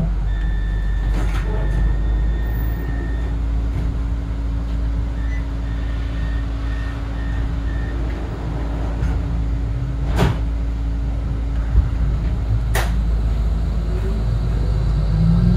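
Inside a Yarra Trams E-class tram standing at a stop: a steady hum and low rumble, with a high electronic tone at the start, then a row of short beeps. Two sharp knocks come about ten and thirteen seconds in, and near the end a rising whine starts as the tram pulls away.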